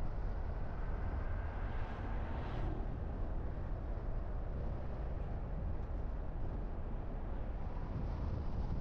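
A car driving along, with a steady low rumble of road and engine noise heard from a dashcam inside the car. There is a brief swell of hiss about two seconds in.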